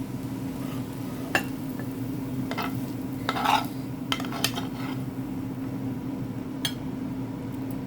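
A cooking utensil scraping and knocking against a pan as stir-fried rice noodles are tossed with soy sauce: about six separate strokes, the longest and loudest scrape near the middle. A steady low hum runs underneath.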